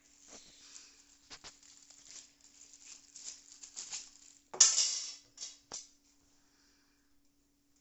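Handling noises: light clicks and scraping, with one loud rustle of packaging about four and a half seconds in, then quiet apart from a faint steady electrical hum.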